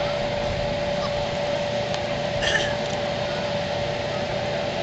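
Electric blower of an inflatable start arch, running with a steady hum and rush of air, with faint crowd voices behind it.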